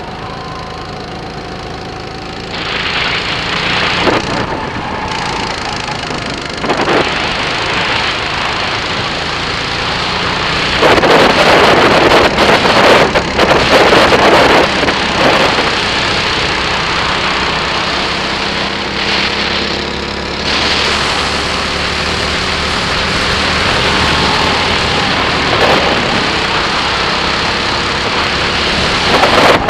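Birel N35 rental kart's engine running on track, its pitch rising and falling as the throttle opens and closes, loudest from about eleven to fifteen seconds in.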